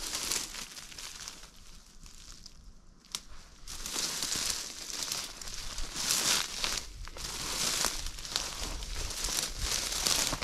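Dry bracken and brush crackling and rustling as someone pushes through it on foot, quieter for the first few seconds and then dense from about four seconds in.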